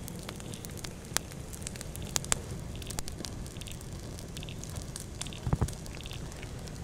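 Campfire crackling, with sharp pops now and then. About five and a half seconds in comes a brief cluster of dull thuds as wooden rune dice land in sand.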